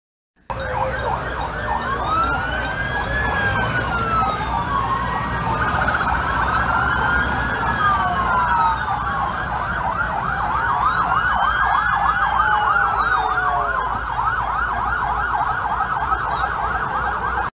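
Several police sirens sounding at once, some in a slow rising and falling wail and others in a fast yelp, over a steady low rumble. The sound starts about half a second in and cuts off just before the end.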